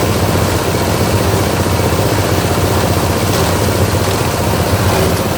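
Veneer and plywood waste grinding machine running steadily, a loud, even mechanical din with a low hum.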